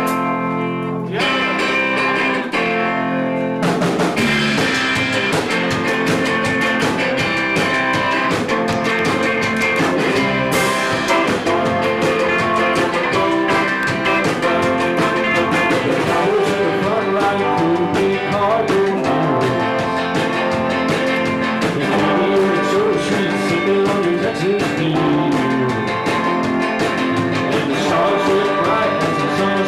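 Live rock band starting a fast song: held electric guitar chords ring out, then the full band with drums comes in about four seconds in and plays on at a driving pace.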